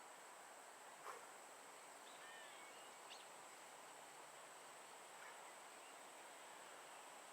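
Near silence: faint outdoor ambience with a steady high-pitched hum and a few faint bird chirps, and a soft tap about a second in.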